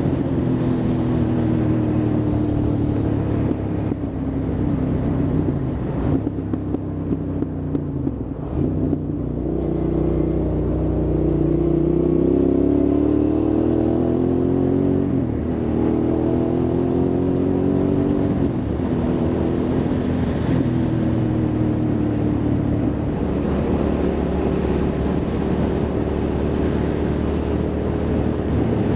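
Hyosung GT650R's V-twin engine running under way, accelerating and slowing: its pitch dips about six to nine seconds in, then climbs, drops back and climbs again several times through the middle.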